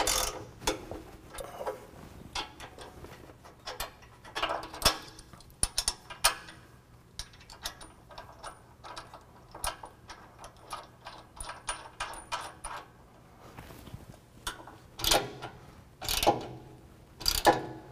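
Hand ratchet clicking in short irregular runs as a 3/4-inch socket tightens nuts on the steel bumper bracket bolts, with clinks of tools and hardware on steel. The clicks get louder and busier near the end.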